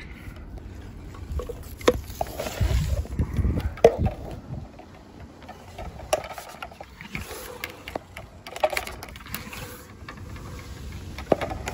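Handling sounds of a telescopic carbon fibre fishing pole being pushed back up as an antenna mast: scattered sharp clicks and knocks, with low rumbling handling noise on the microphone between about two and four seconds in.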